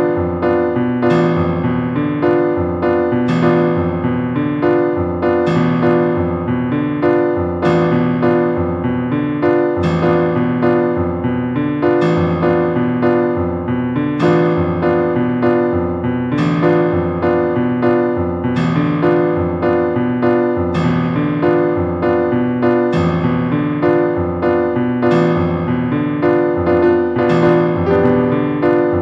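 Background music played on piano or electric piano, with notes struck in a steady, regular rhythm.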